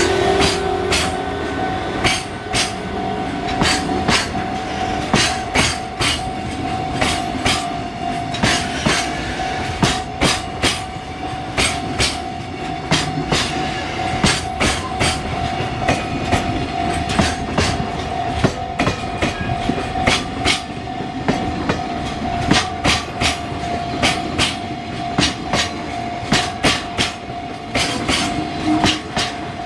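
A train passing over a level crossing, its wheels clicking over the rail joints in quick pairs over a steady rumble. A Japanese level-crossing alarm rings on as one steady high tone throughout.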